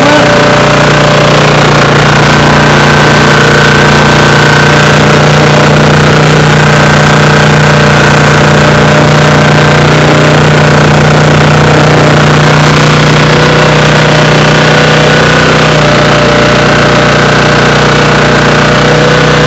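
Honda 1400-watt generator's small four-stroke engine running at a steady speed, with its air filter off. It has just been refilled to the correct oil level after being overfilled, and it runs evenly.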